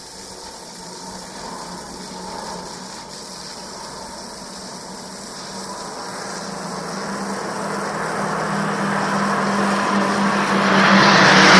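Engines of a group of aerobatic airplanes in flight: a steady low hum that grows louder from about halfway through, swelling into a broad rush near the end as the planes come closer.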